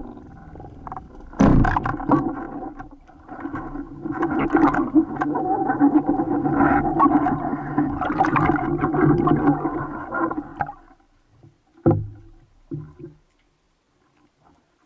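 Band speargun fired underwater, a sharp snap about one and a half seconds in. Clicking and rattling follows for about nine seconds over a steady low hum, with one more sharp knock near twelve seconds before it goes quiet.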